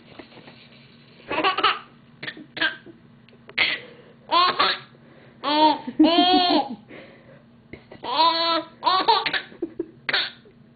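A baby laughing hard in a string of short, high-pitched bursts, with the longest laughs about five to seven seconds in.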